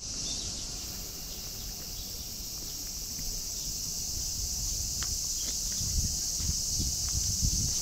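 A steady, high-pitched insect chorus. From about six seconds in, irregular low thumps of footsteps on the gravel path come in under it.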